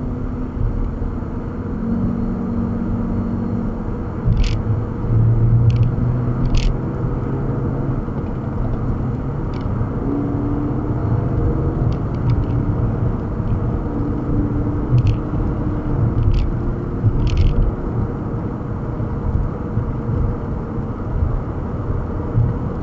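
Steady low road and engine rumble of a car cruising at highway speed, heard inside the cabin, with a few brief high chirps now and then.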